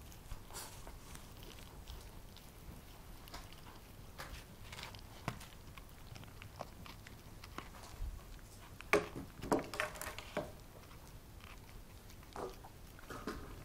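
Border terrier chewing and gnawing on a chew held between its front paws: irregular short crunches and clicks, loudest in a cluster about nine to ten seconds in.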